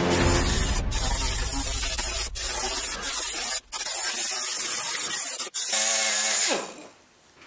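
Air-powered die grinder with a rust-removal wheel running against the steel truck bed, a loud even hissing grind as rust is stripped from the scratches. It cuts out briefly a few times and stops about six and a half seconds in.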